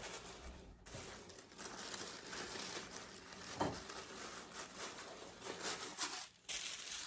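Packaging crinkling and rustling as it is handled during an unboxing, in irregular crackly bursts with a brief pause near the end.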